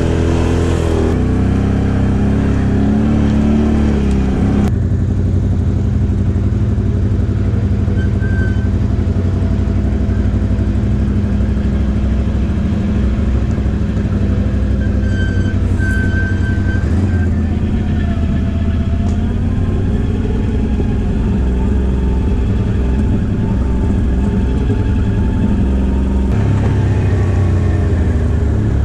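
ATV engine running steadily under way on a dirt trail. The engine note changes about five seconds in, and the revs rise and fall a few times later on.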